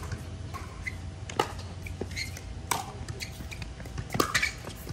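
Pickleball rally: several sharp pops of paddles hitting the hollow plastic ball and the ball bouncing on the hard court, about a second apart.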